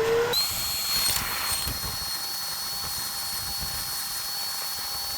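Vacuum cleaner motor finishing its wind-up to speed, then running steadily with a high whine and rushing air as it sucks up snow.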